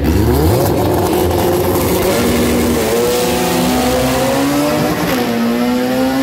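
Two drag-racing cars launching off the start line at full throttle. The engine note sweeps sharply up right at the launch, then keeps climbing through the gears, dropping in pitch at each of several upshifts.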